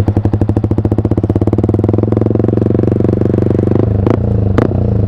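Yamaha R15 V3's 155 cc single-cylinder engine revved through a Villan Pro1 aftermarket full-system exhaust: the firing pulses quicken as the revs climb. About four seconds in the throttle is closed, followed by a few sharp cracks from the exhaust.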